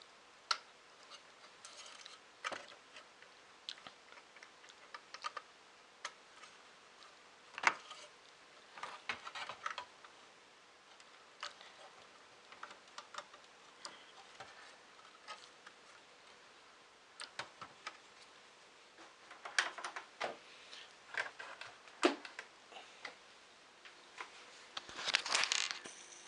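Irregular clicks and light plastic clatter from an Amiga 500 floppy disk drive being handled and connected, with a busier stretch of rattling near the end.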